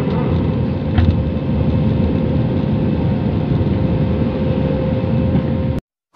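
Jet airliner engine noise heard inside the cabin during the climb after takeoff: a steady rumble and rush with a faint hum in it. There is a brief click about a second in, and the sound cuts off abruptly near the end.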